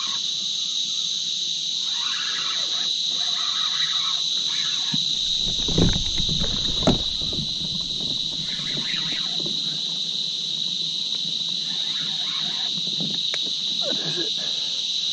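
Steady, high-pitched chorus of insects from the riverbank bush, with a couple of dull knocks about six and seven seconds in.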